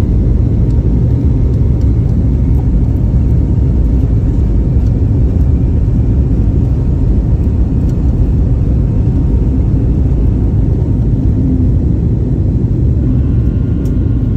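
Jet airliner's engines and rolling rumble heard inside the passenger cabin during the takeoff roll, a steady, loud, deep roar.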